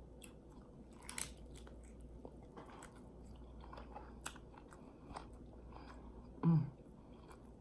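Close-up mouth sounds of chewing a bite of deep-fried ham hock egg roll, with faint crackles of the crisp wrapper. About six and a half seconds in comes a short, louder hum, an appreciative "mm".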